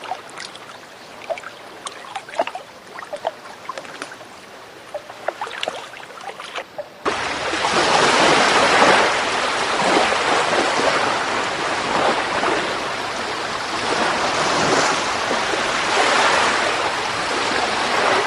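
Water: gentle lapping with many small drips and splashes, then about seven seconds in it cuts abruptly to a louder, steady rush of water that rises and falls in swells.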